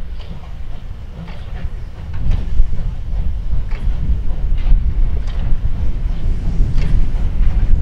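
DR class 64 steam tank locomotive 64 518 approaching under steam. Its exhaust chuffs come as a loose beat over a heavy low rumble, and the sound grows louder about two seconds in.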